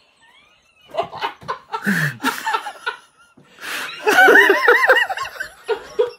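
People laughing. After a quiet first second come breathy snickers and a short falling groan from a man. In the last two seconds there is a quick run of high-pitched laughter.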